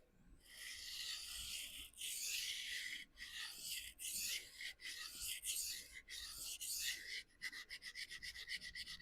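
D2 steel knife blade stroked freehand across a vitrified diamond sharpening stone, a gritty scrape about once a second, switching near the end to a quick run of short strokes. The edge is being ground until a burr forms.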